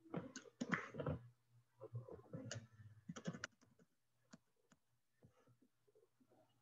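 Quiet, irregular clicking of computer keys, densest in the first second or so and thinning out after about four seconds, over a faint steady hum.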